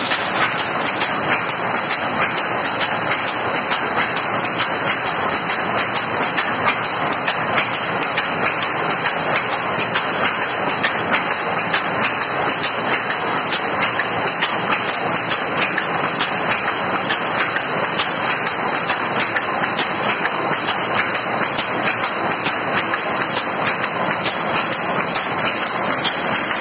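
Loom with a lappet attachment weaving nylon kotta fabric, running with a fast, steady, even clatter.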